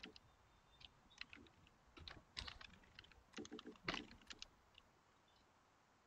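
Faint, irregular keystrokes on a computer keyboard, a scatter of light clicks that stops about a second before the end.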